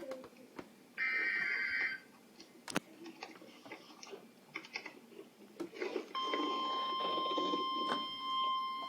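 NOAA Weather Radio EAS alert: about a second in, a one-second rasping warble of SAME digital header data. After a few seconds of faint clicks and hiss, the steady 1050 Hz weather-radio warning alarm tone begins about six seconds in, signalling a warning broadcast.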